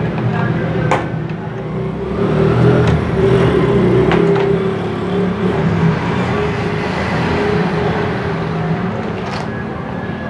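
Road traffic: a motor vehicle's engine running close by and swelling for a few seconds, with a few sharp clicks.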